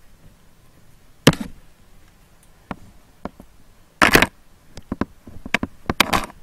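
Scattered sharp knocks and clicks: a loud knock about a second in, a short rustling burst about four seconds in, and a quick run of clicks near the end. This is handling noise from a handheld camera being carried through the house.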